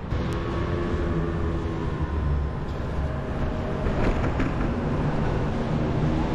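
City road traffic: vehicle engines humming nearby over a steady low rumble of wind noise on a bicycle-mounted microphone.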